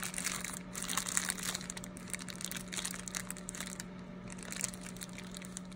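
Clear plastic parts bag crinkling as it is handled, in irregular crackles that are busiest in the first couple of seconds and then thin out, over a steady low hum.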